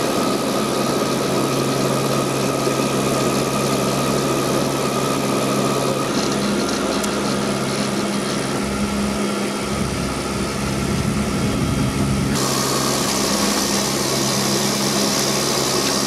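Turboprop airliner's engines and propellers droning steadily, heard inside the cabin on approach to landing, with several steady hum tones. About twelve seconds in the sound changes abruptly to a brighter hiss with less low hum.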